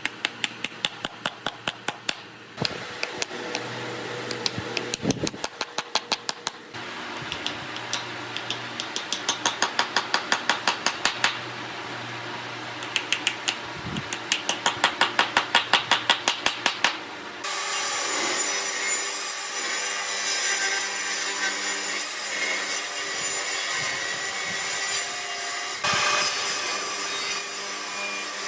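Rapid, even strokes of a hand tool working wood, about four or five a second, in several short runs. About two-thirds of the way through they give way to the steady noise of a power tool on wood.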